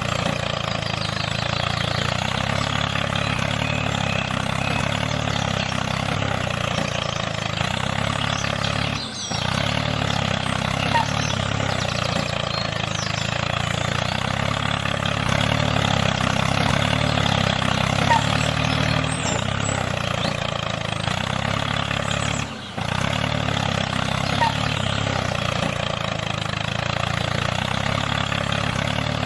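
A small motor running steadily, with two brief dips, one about nine seconds in and one near the end.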